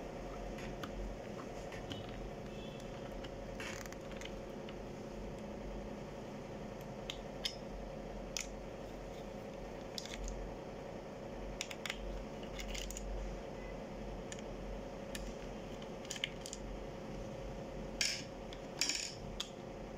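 Light clicks and taps of a screwdriver and hands working on the plastic base of an HP ProBook 4530 laptop during disassembly, scattered throughout with a few louder clatters near the end, over a steady low hum.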